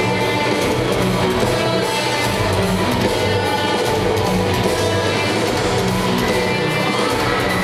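Live rock band playing loud and steady, with strummed electric guitars over a driving rhythm.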